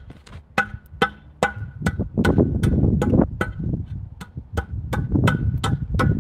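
Asphalt paving work: an even ticking about two and a half times a second, each tick with a short ring, over a low engine rumble, with a stretch of rough scraping about two seconds in, fitting a rake working loose asphalt.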